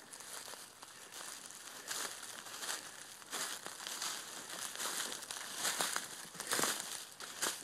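Footsteps crunching and rustling through dry leaf litter and low woodland undergrowth, an irregular run of crunches with a louder cluster near the end.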